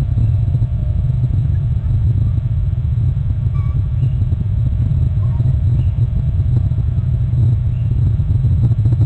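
Steady low wind rumble buffeting an outdoor nest-cam microphone, with a few faint, short, high bird chirps over it.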